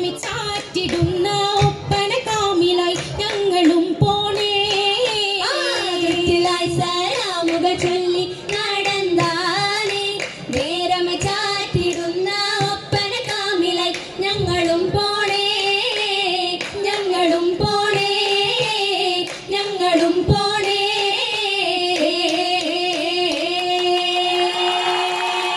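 Oppana song: a group singing a Mappila melody, with sharp hand claps from the dancers keeping time. The song ends on one long held note near the end.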